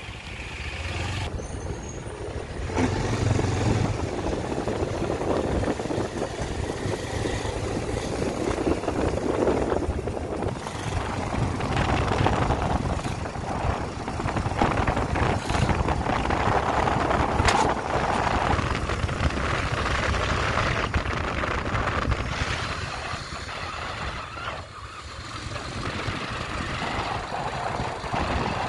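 Motorcycle riding along the road: engine running under the steady rush of wind on the microphone, the noise swelling and easing with speed.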